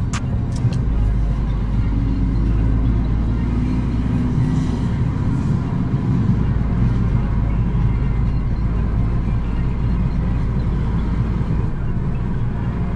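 Steady low engine and road rumble heard from inside a car's cabin as it drives.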